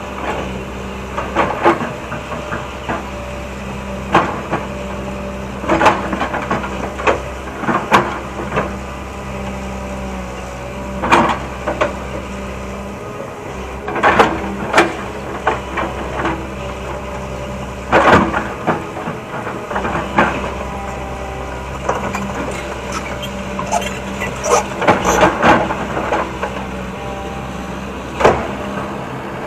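Hitachi excavator's diesel engine running steadily, with sharp clunks and knocks every few seconds as the bucket and arm work.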